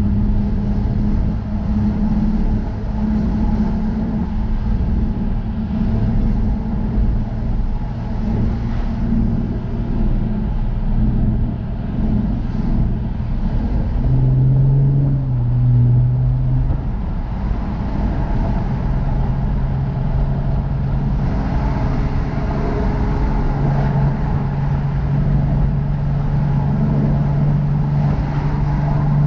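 Jaguar F-Type sports car engine running while driving, over steady road and wind noise. The engine note drops lower around a third of the way in, jumps up and down briefly about halfway, then settles and rises a little toward the end.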